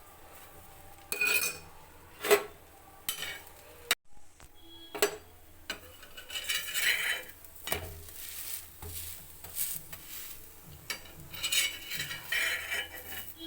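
Metal kitchen utensils clinking, tapping and scraping against cookware, in irregular strokes, with a brief break about four seconds in.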